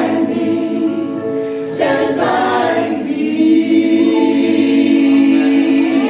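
A man and a woman singing a live duet into microphones, backed by a group of voices in harmony. They hold long notes, changing chord once about two seconds in and then sustaining one long chord.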